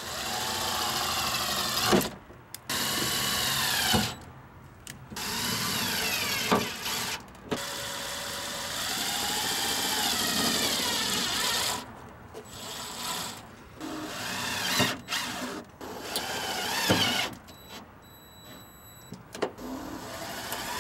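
DeWalt cordless driver running self-tapping screws through a plastic door map pocket into the sheet-metal door. It runs in a series of bursts, the longest about four seconds, with the motor pitch rising and falling as each screw bites and seats.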